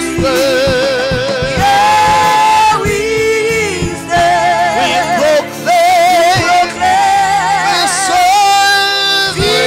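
Gospel worship singing: long held notes with heavy vibrato, moving from note to note.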